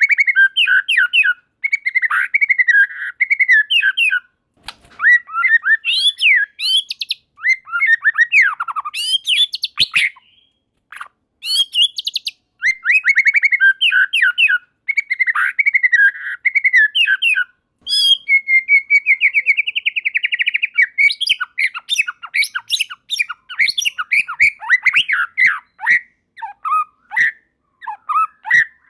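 White-rumped shama singing: fast, varied phrases of whistles, chirps and harsh notes with short pauses between them, and a rapid even trill about two-thirds of the way through.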